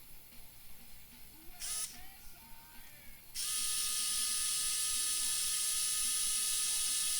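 Small electric screwdriver motor giving a short buzz, then whining steadily from about three seconds in as it drives a screw, running on until the screw is nearly home.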